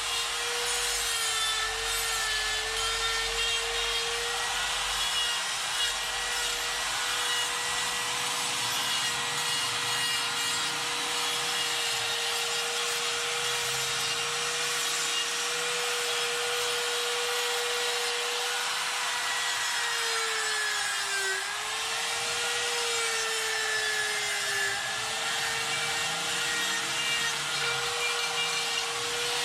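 Die grinder with a carbide burr grinding into wood: a steady high-speed whine over a rough grinding rasp. The pitch sags twice, about two-thirds of the way through, as the burr is pushed harder into the wood, then recovers.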